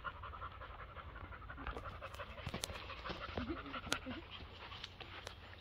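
Faint rapid panting breaths, with a few sharp taps about two and a half and four seconds in.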